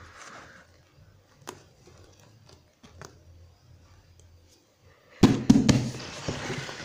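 A few faint clicks, then about five seconds in a sudden run of loud knocks and rubbing against leather upholstery, as from a hand or phone bumping and scraping the seat.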